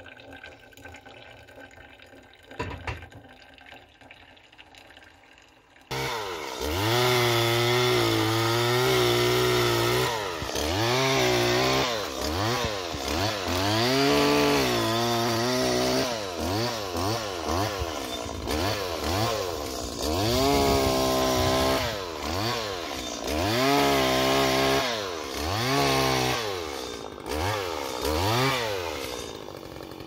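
Faint dripping from a coffee filter with a single click, then about six seconds in a chainsaw starts loud and revs up and down over and over, in short bursts, as branches are cut.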